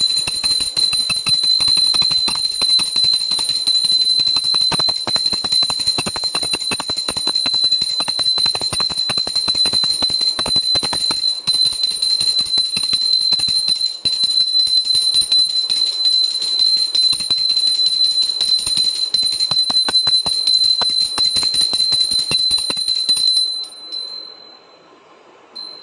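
Puja hand bell rung rapidly and without a break during aarti: a steady high ringing with quick clapper strikes, stopping near the end.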